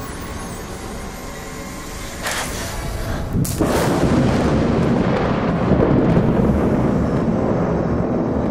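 Thunder: a first crackle about two seconds in, a sharp thunderclap about a second later, then a long, heavy rolling rumble.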